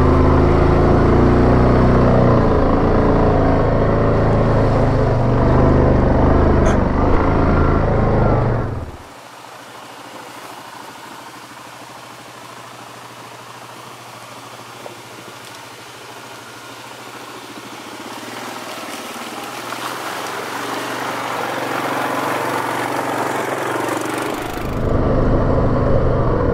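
Yamaha Grizzly 700 ATV's single-cylinder engine running under load in low-range four-wheel drive, then cutting out abruptly about nine seconds in. A much quieter steady hiss follows and slowly grows, and the engine sound returns loudly near the end.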